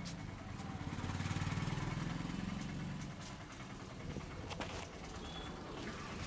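A motor vehicle engine, likely a motorbike, passes by, swelling over about two seconds and then fading. A few faint light clicks follow later.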